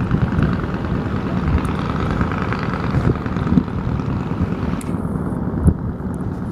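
Steady low rumble of a boat under way, with wind buffeting the microphone; the faint high hiss drops away about five seconds in.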